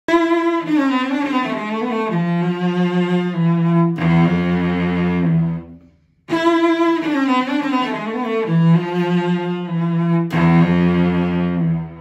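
Etienne La Prévotte cello, made in Paris around 1849 and strung with Larsen Magnacore Arioso strings, played with the bow: a short melodic phrase ending on a low chord that rings and dies away, then the same phrase played again after a brief gap.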